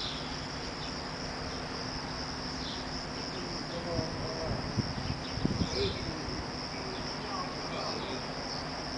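Crickets chirring steadily as one continuous high-pitched trill. A few faint low knocks come about four to six seconds in.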